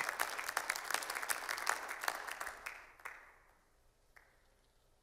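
Audience applauding, the clapping thinning and dying away about three seconds in, with a last lone clap a second later.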